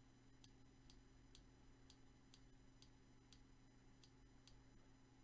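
Near silence: faint room tone with a low steady hum and soft, fairly regular ticks about twice a second.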